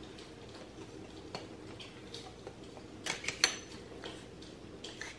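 Small hard clicks and clinks of a lightsaber hilt's parts being handled and fitted over the blade, with a short run of sharper knocks about three seconds in and another near the end.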